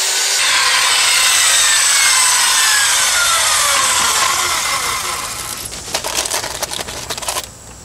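Circular saw cutting through a 2x4, its motor whine rising as it spins up and then falling slowly as the blade winds down. Near the end comes a run of sharp clicks and rattles.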